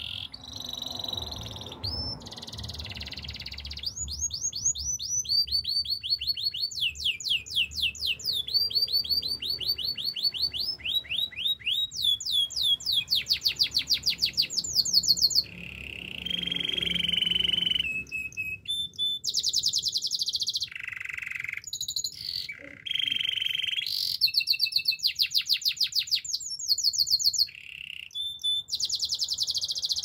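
Domestic canary singing a long, fast song of rapid trills: runs of quick, repeated downward-sweeping notes that switch to a new phrase every second or two, broken by a few short pauses.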